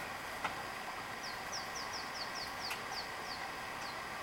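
A bird giving a quick series of about ten short, high, falling chirps, roughly four or five a second, over a steady outdoor background hiss.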